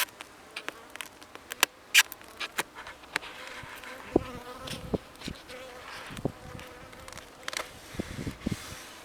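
Honeybees buzzing around the hive in a steady hum, over scattered sharp clicks and a few low knocks from handling.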